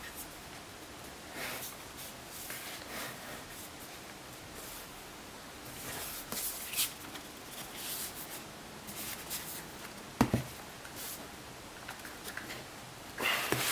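Hands rubbing, scraping and tapping on a cardboard book slipcase, working out a hardback that sits stuck tight inside it. One sharp knock about ten seconds in is the loudest sound.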